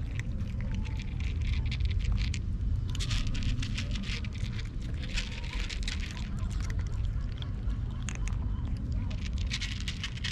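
Cats crunching dry kibble, with quick, crisp clicks in bursts as they chew, over a steady low rumble.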